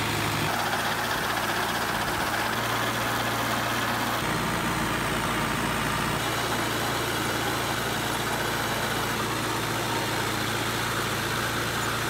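Farm tractor engine running steadily while the tractor is driven over grass.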